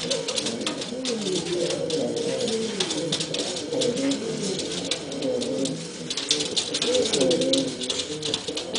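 Domestic pigeons cooing steadily in overlapping coos that rise and fall in pitch, as a male with a puffed-out crop displays to and circles another pigeon in courtship. Scattered light ticks and rustles sound above the cooing.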